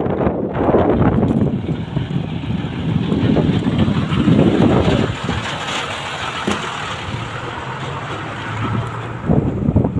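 Five-ton dump truck's diesel engine running as the truck drives past close by. It is loudest in the first half and drops away after about five seconds.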